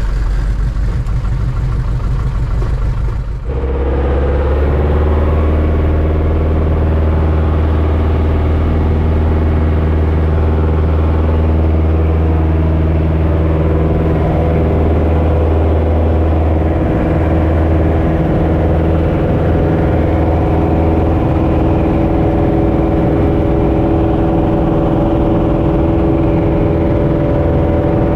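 Piston engine and propeller of a two-seat, high-wing light aircraft, heard inside the cabin. It runs at low power while taxiing, then about three and a half seconds in the sound changes abruptly to a louder, steady full-power note held through the takeoff and climb.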